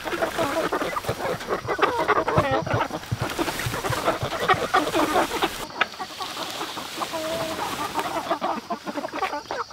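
A flock of chickens clucking inside a mobile coop while it is being moved, with many short calls overlapping throughout.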